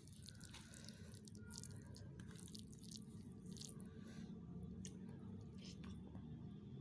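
Faint wet chewing and mouth clicks of someone eating rice by hand, with soft squishes of fingers working the rice on a steel plate, over a low steady hum.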